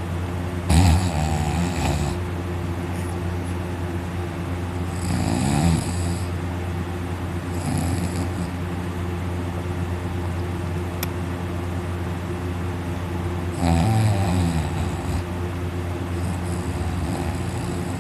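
A person asleep on their back snoring loudly, about five rattling snores on the breaths, unevenly spaced, over a steady low hum. There is a single faint click about halfway through.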